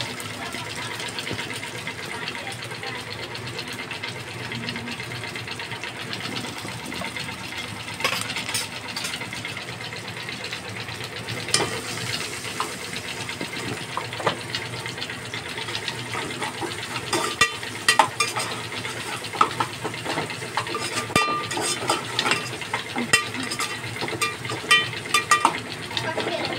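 Sliced onions cooking in a steel pot with a steady sizzle, stirred with a metal spoon. From about two-thirds of the way in, the spoon clinks and knocks against the pot many times.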